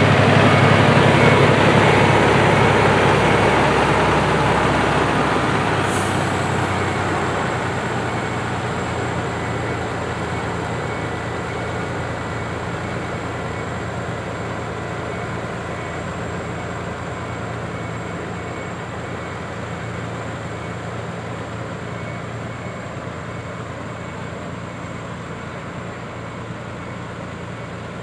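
Volvo FH16 tipper truck's diesel engine running at low revs while it reverses slowly on gravel. It is loudest as it passes close at the start, then fades steadily as the truck backs away.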